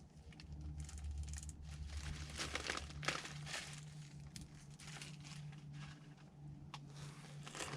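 Seed packets and their packaging crinkling and rustling in irregular bursts as they are handled and sorted by hand, over a low steady hum.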